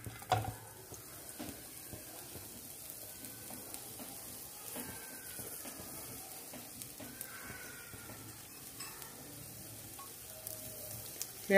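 Grated coconut and jaggery cooking in ghee in a pan, sizzling quietly while being stirred, with a brief knock at the start.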